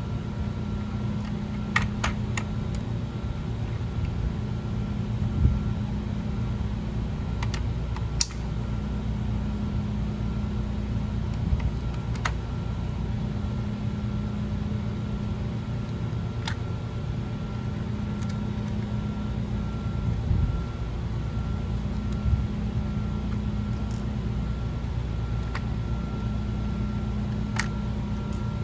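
Steady low machine hum with a faint high whine over it, and a few scattered light clicks and taps as a small circuit board and hand tools are handled.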